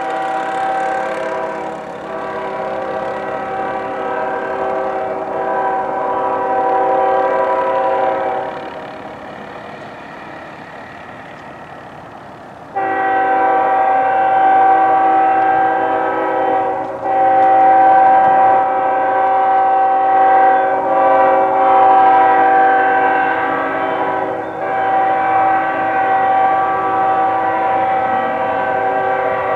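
GE ES44AC diesel locomotive's multi-note air horn blowing long blasts as the train approaches: one long blast, a lower rumble of the train for about four seconds, then a longer sounding that starts abruptly and runs on with three brief breaks.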